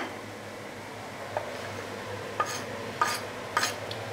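Kitchen utensils knocking on a board and a metal pan as chopped parsley is added to a pan of linguine: about five separate sharp knocks, some with a short metallic ring, over a low steady hum.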